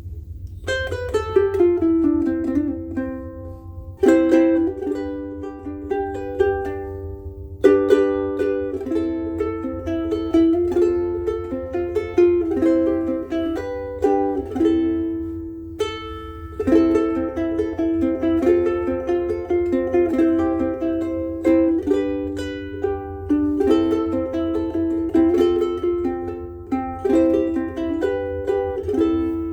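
Soprano ukulele with UkeSA strings, played in chords and short melodic phrases. A faint steady low hum lies underneath.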